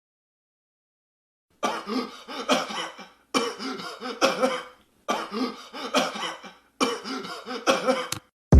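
A person coughing in four bouts of several coughs each, starting about a second and a half in.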